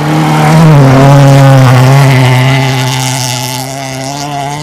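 Rally car engine held at high revs as the car passes, loudest about a second in and then fading away.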